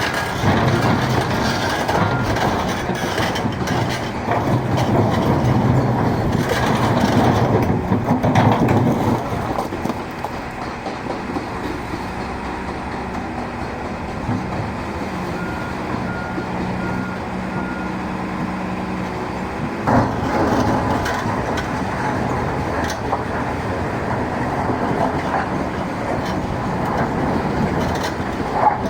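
A Volvo excavator's diesel engine and a mobile stone crusher running steadily, louder for the first third. A reversing alarm beeps briefly in the middle, and there is a single sharp knock about two-thirds of the way through.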